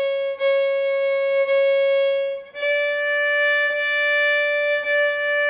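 A solo fiddle played slowly on the A string: long bowed C-sharp notes, each bow stroke lasting about a second, then about two and a half seconds in it steps up a half step to D, bowed the same way.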